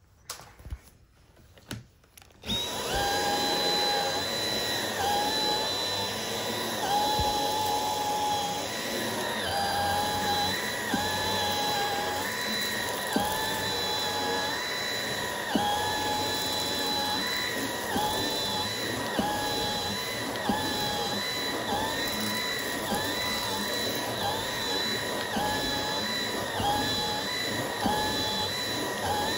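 Dyson V8 cordless stick vacuum with its mini motorised brush head: a few handling clicks, then the motor switches on about two and a half seconds in and runs steadily with a high whine. Its pitch dips and recovers about once a second as the head is worked back and forth over a shaggy rug, with occasional sharp ticks.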